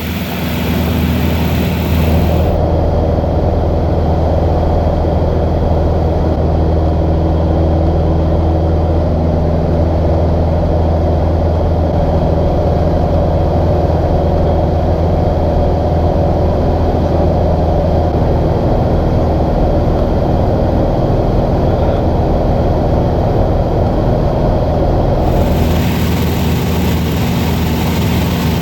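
Cessna 150's four-cylinder piston engine and propeller droning steadily in cruise flight. The sound stays level, with only the upper hiss thinning out a couple of seconds in and coming back near the end.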